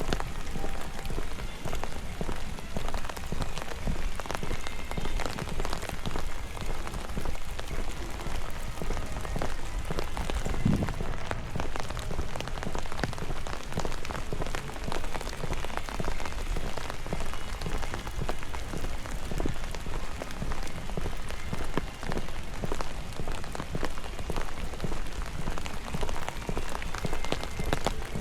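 Steady rain falling close by, a dense run of separate drop hits. A single dull low thump comes about ten seconds in.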